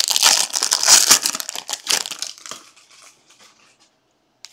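Foil wrapper of a 2023 Bowman Jumbo baseball card pack crinkling as it is torn open and pulled off the stack of cards. The crinkling is loud for about two and a half seconds, then dies away.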